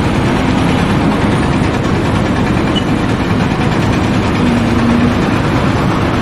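A heavy engine running steadily, a rough continuous rumble.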